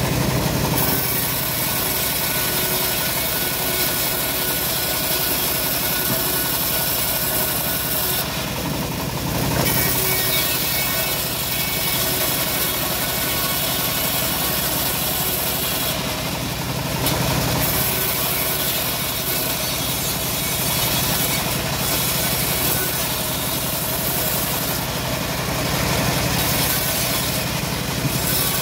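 A homemade bandsaw mill runs steadily under its engine while the band blade rips teak boards, giving a continuous high cutting hiss over the engine drone. The hiss breaks off briefly about four times between cuts.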